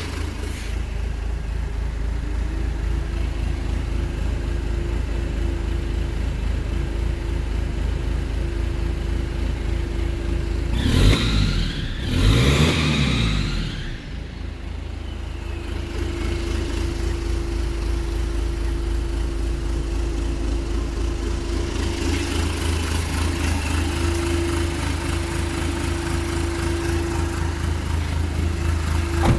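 JAC N56 truck's 2.8-litre turbodiesel engine idling with a steady whine over it. It is revved twice in quick succession about eleven seconds in, then drops back to idle.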